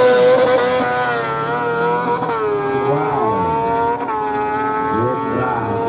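Superbike-class sport motorcycle accelerating hard away down a drag strip, its engine note climbing and then dropping at quick upshifts about two and four seconds in.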